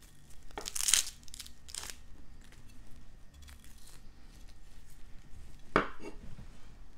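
Papery outer skin being peeled and torn off a red onion with a kitchen knife: a few short rustling tears, the loudest about a second in, another just under two seconds in and one near the end.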